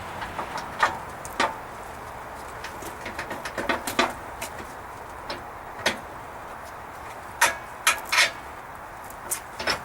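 Irregular clicks and knocks of a winch front bumper being fitted against a Jeep's frame and its bolts pushed into place, with three louder knocks about three-quarters of the way through.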